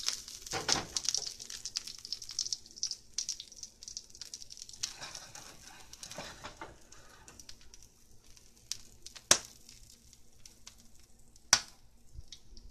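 Last popcorn kernels popping in a hot pan with the heat turned off: scattered sharp pops over a sizzle that fades away as the popping winds down, with two louder pops near the end.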